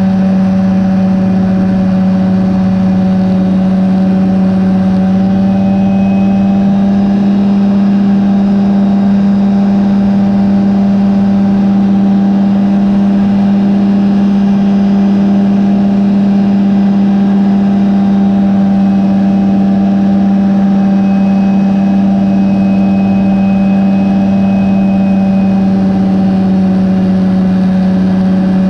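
Rotax 503 two-cylinder two-stroke engine of a Phantom X1 ultralight running at a steady power setting in flight, loud, with an unchanging pitch.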